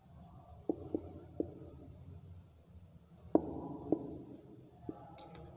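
Marker pen writing on a whiteboard: a handful of short taps and scratchy strokes, some with a brief squeak, over a faint low room hum.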